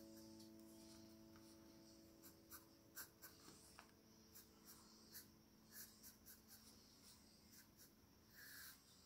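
Colored pencil scratching faintly on kraft paper in short, irregular strokes as a portrait is shaded in.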